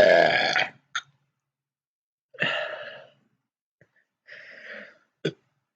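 A woman belching in a series: a loud belch at the start and a shorter one about two and a half seconds in, followed later by a fainter breathy sound and a sharp click near the end.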